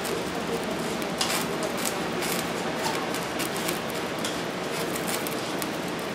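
A metal spoon scraping and pressing green pea purée through a fine wire-mesh sieve, a string of short scratchy scrapes over a steady background hiss.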